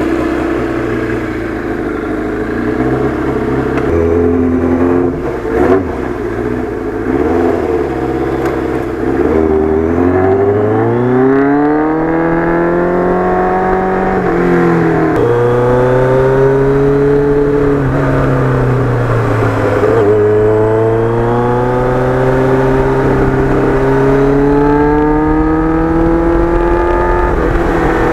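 Kawasaki Ninja GPX750R inline-four with a Norton muffler, running steadily at low revs for the first several seconds, then accelerating: the pitch climbs, drops back sharply at an upshift partway through, climbs again, and settles into a steady cruise near the end.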